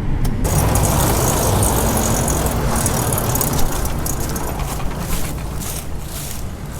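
Combine harvester running: a steady low engine rumble with a loud rushing machinery noise that comes in suddenly about half a second in and slowly eases off.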